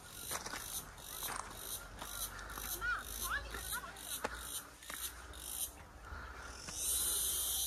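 Forest insects droning in high-pitched pulses, about three a second. About seven seconds in, a louder continuous buzz sets in, with a few short chirps and faint clicks along the way.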